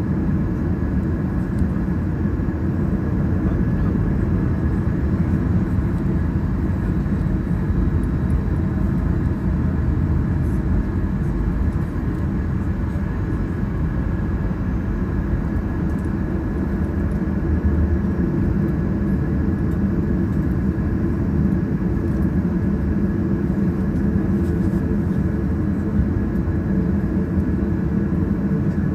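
Airliner engines running steadily at idle, heard from inside the cabin, with a constant hum and a faint steady whine and no build-up in power while the aircraft holds on the runway.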